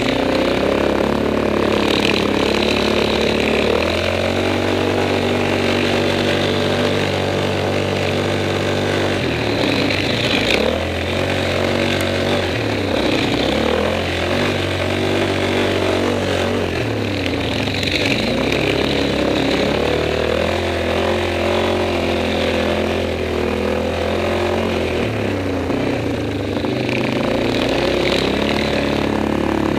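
ATV's single-cylinder four-stroke engine running while ridden along a dirt trail. Its pitch climbs and drops several times as the throttle is opened and eased off.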